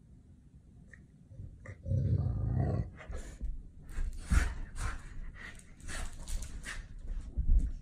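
Golden retrievers growling in play: a low growl about two seconds in lasting most of a second, then a string of short growls and huffs while the two dogs tussle.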